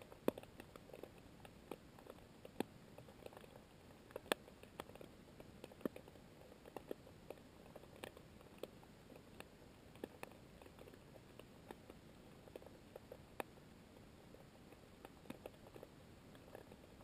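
Underwater ambience: irregular sharp clicks and ticks, a few each second, over a faint hiss, with a handful of louder snaps.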